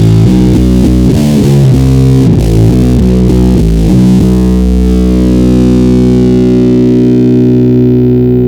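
Stoner doom metal: a heavily distorted guitar and bass riff with drums, which stops about four seconds in on a held chord left to ring out, its treble slowly fading.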